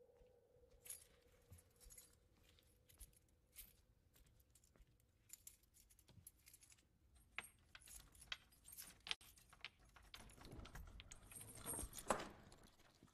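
Faint scattered metallic clicks and jingling that grow denser and louder in the second half, with one sharper click near the end. A faint steady hum fades out over the first few seconds.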